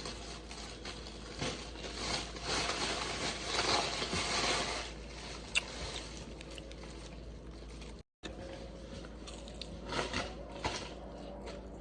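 Crunching, scraping and rustling from handling food and its takeout packaging, with a louder stretch of crackling about two to five seconds in and a few sharp clicks.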